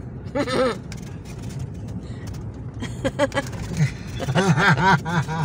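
Car driving, a steady low rumble of engine and road, with people's voices coming in briefly a few times over it.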